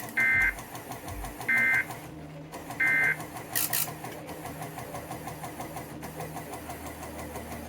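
Emergency Alert System end-of-message code: three short bursts of warbling two-tone digital data, about a second apart, closing a NOAA Weather Radio tornado watch broadcast. A steady low hum runs underneath.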